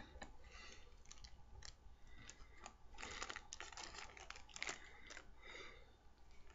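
Faint crinkling rustles and scattered light clicks of a plastic bag of pipe tobacco being handled close to the microphone.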